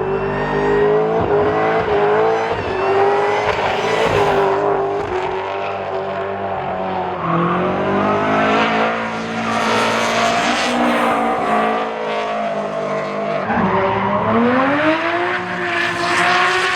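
Drift car engine held at high revs with tyres squealing and skidding, the revs dropping about three-quarters of the way through and then climbing again.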